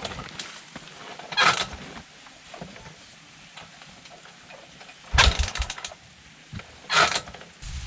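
A damaged motorbike that won't start being cranked over: short bursts of cranking about a second and a half, five and seven seconds in, with an engine rumble starting just before the end.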